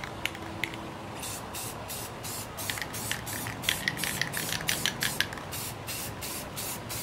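Aerosol can of gloss black spray paint spraying in short repeated bursts, about three a second, as a second coat goes onto small plastic model car wheels.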